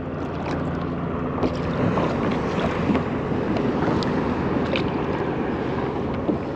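Wind buffeting the microphone and water washing around a kayak, a steady rushing noise, with a few light clicks and knocks scattered through it.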